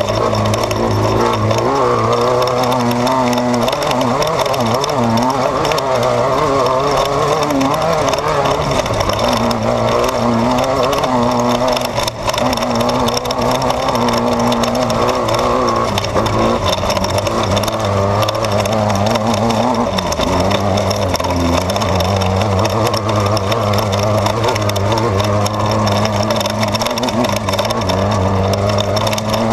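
Off-road desert race car heard from inside the car, its engine running hard with the pitch rising and falling as the throttle changes, over a steady noise of the car at speed. There is a brief drop about twelve seconds in, like a lift off the throttle or a gear shift.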